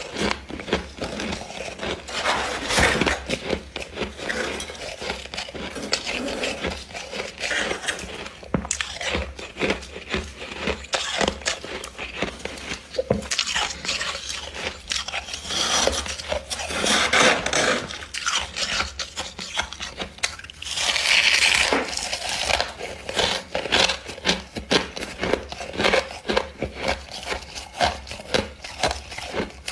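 Freezer frost being scraped up, bitten and chewed: irregular crunching and crackling with many sharp clicks, and louder scraping rushes about halfway through and again about three quarters through.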